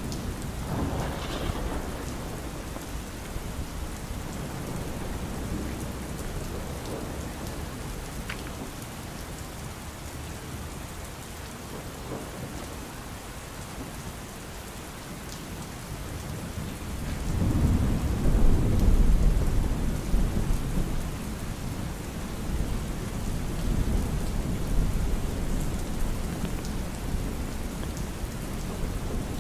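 Rain falling steadily on an umbrella, with low rolling thunder that builds a little over halfway through, is loudest for a few seconds, then rumbles again more weakly later.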